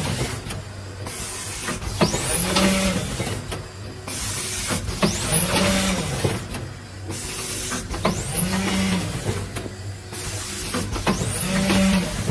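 Rotary premade stand-up pouch fill-and-seal machine cycling about every three seconds. Each cycle brings a click, a rising whine, a short low hum and a hiss of air as the pouch grippers and turntable index, with a brief lull between cycles.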